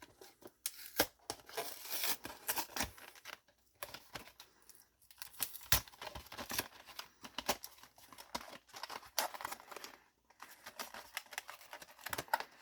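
Packaging of a Yu-Gi-Oh! Special Edition box being torn open and handled: irregular crackly tearing and crinkling with sharp clicks, pausing briefly a few times.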